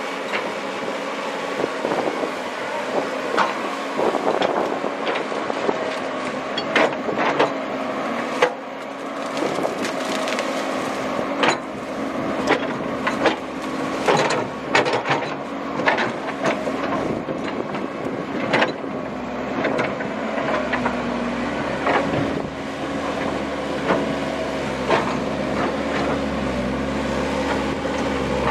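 Komatsu PC130 excavator's diesel engine running steadily, with frequent sharp knocks and scrapes as the bucket works through riverbed stones.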